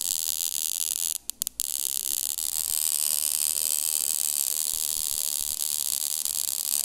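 Flyback transformer driven by a 556 timer circuit from a 9 V battery, running with a small high-voltage arc between its output wires: a steady high-pitched whine and buzz. It cuts out three times in quick succession about a second in, then carries on.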